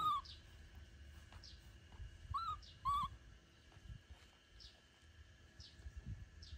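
A baby macaque gives three short, arched, high-pitched coos, one at the start and two close together about two and a half seconds in. Behind them a bird repeats a faint, short, falling chirp about once a second.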